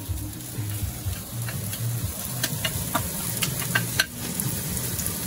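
Sliced onions sizzling and crackling as they are tipped into hot olive oil in a stainless steel stockpot, with a sharp knock about four seconds in.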